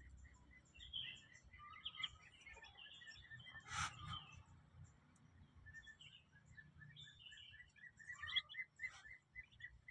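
Faint peeping of newly hatched Muscovy ducklings: many short high chirps, with a quick run of repeated peeps in the second half. A brief knock about four seconds in.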